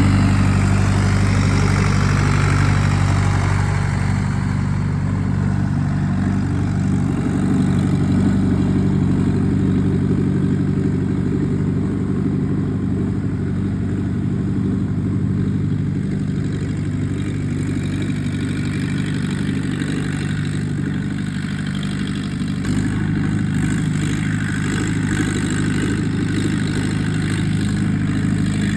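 Fendt tractor's diesel engine running steadily at low revs.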